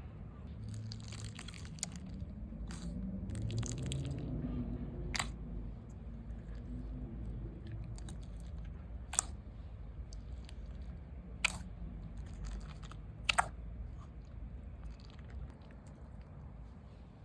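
Slime being squeezed and poked by hand, giving crunchy crackles and a scattering of sharp pops and clicks.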